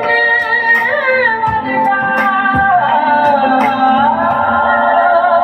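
A song with a woman singing over a held low drone, played through a bare 12-inch BX Pro 400-watt speaker driver as a sound test.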